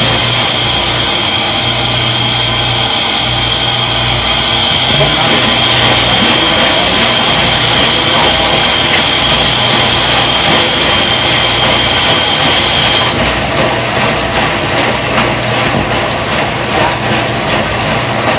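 Front-load washing machine in its spin cycle: a loud, steady running noise with a high whine.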